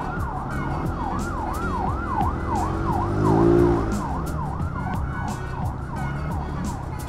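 A siren sounding in a fast repeating pattern of falling sweeps, about two a second, over steady low road and engine noise. About three seconds in, a lower pitched drone rises and falls for about a second and is briefly the loudest sound.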